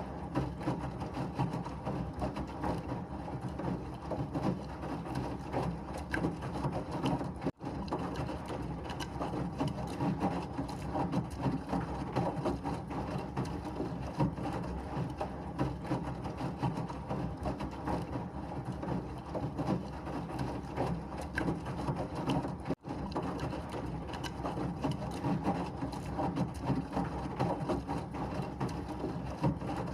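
Washing machine running steadily, a continuous churning mechanical noise with a low hum underneath. It cuts out for an instant twice, about eight seconds in and again near twenty-three seconds.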